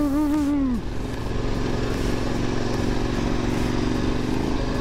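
KTM adventure motorcycle's engine running steadily as it rides through loose sand, with a brief wavering tone in the first second.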